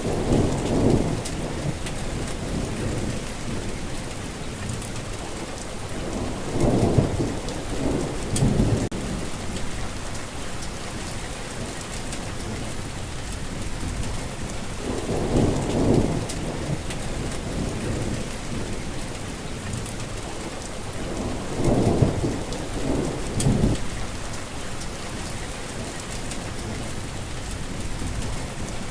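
Steady heavy rain with rolls of thunder, louder low rumbles swelling up about every six to eight seconds.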